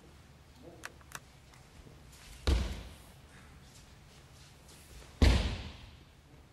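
Two heavy thuds about three seconds apart: an aikido uke's body slamming onto the tatami mat in breakfalls as he is thrown. Each thud has a short echoing tail.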